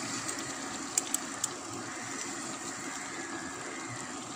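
A ladle stirring a simmering egg curry in a pan, over a steady hiss, with three sharp clicks of the ladle against the pan about a second in.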